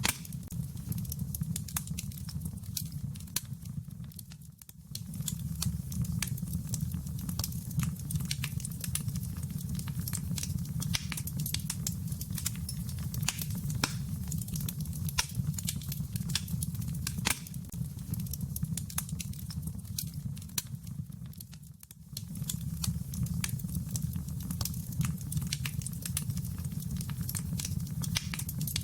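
Wood fire crackling in a fireplace: a low steady rumble under frequent sharp pops and snaps. The sound dips briefly twice, a few seconds in and again about three quarters of the way through.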